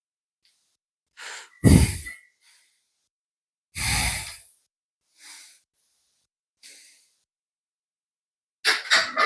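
A man breathing hard from cardio exertion: about six heavy, breathy exhales a second or two apart, the loudest two about 2 and 4 seconds in. A quick cluster of short knocks comes near the end.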